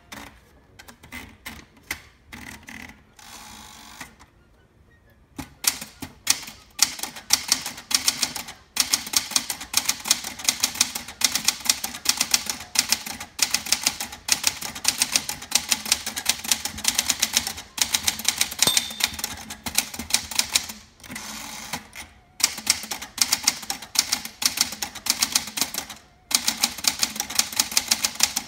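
1964 Sears Celebrity manual portable typewriter: a few clicks and a rustle as paper is wound into the platen, then fast typing, a rapid run of sharp key strikes with two short pauses.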